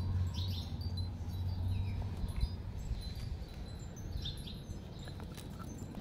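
Small birds chirping in short, high, falling notes, over a steady low rumble that eases after about two seconds.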